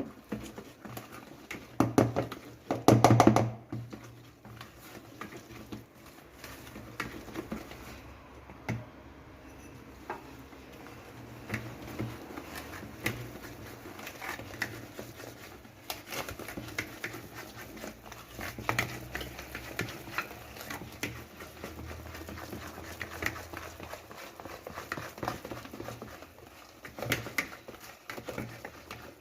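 Cake batter being whisked in a bowl to work in the flour: a steady run of quick, irregular clicks and taps of the whisk against the bowl, with a louder clatter of knocks about two to three seconds in.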